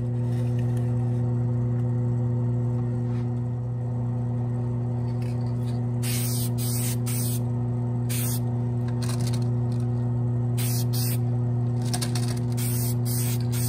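Dull coat being sprayed onto a model's hood in short hissing bursts, each up to about a second long, starting about six seconds in and recurring every second or two. Under them runs a steady electric motor hum.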